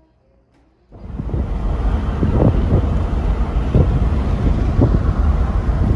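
Wind buffeting the microphone, a loud rumbling rush that starts suddenly about a second in and swells in gusts.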